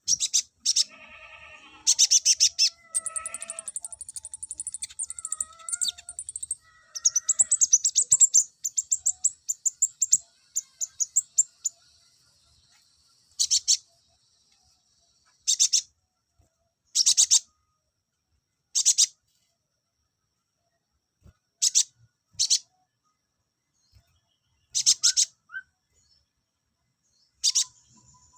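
A small songbird, the konin of the title, singing: about twelve seconds of continuous rapid, high-pitched trills and chirps mixed with a few lower whistled notes. Then come short bursts of high chirping every couple of seconds.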